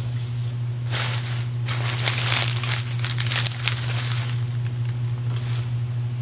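A plastic bag and aluminium foil crinkling and rustling as a hand digs into them for roast chicken, in bursts from about a second in to just past four seconds and briefly again near the end. A steady low hum runs underneath.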